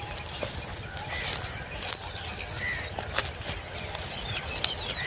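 Footsteps crunching through dry harvested wheat stubble, with wind on the microphone and a few short bird chirps.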